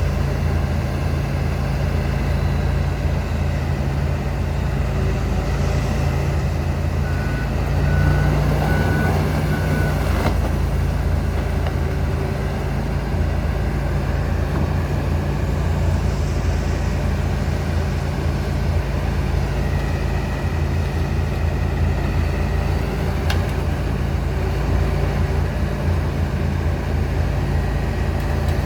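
John Deere 245G LC excavator's diesel engine running steadily under working load. A short run of about four beeps comes about a quarter of the way in, followed by a knock. About two-thirds in, a whine rises and falls.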